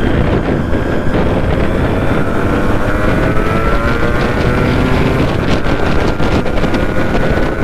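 Yamaha RX two-stroke motorcycle engine running under way, its note climbing gently about halfway through, with wind rumbling on the microphone.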